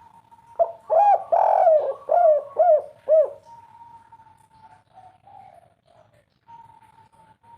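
Spotted dove (tekukur) cooing one phrase of about six throaty notes, the third drawn out longer than the rest, starting about half a second in and ending around three seconds in.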